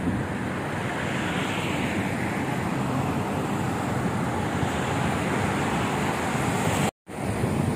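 Steady road traffic noise from a busy multi-lane city street. The sound cuts out for an instant near the end.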